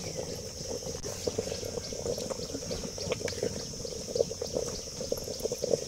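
Thick, wet mango pulp being spooned into glass tumblers: irregular soft wet plops and scrapes, with small clicks of the spoon against the glass.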